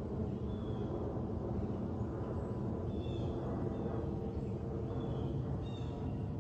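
Steady low jet noise from a Boeing 737 MAX 8 climbing out after takeoff, its CFM LEAP-1B engines heard from the ground. Small birds chirp briefly several times over it.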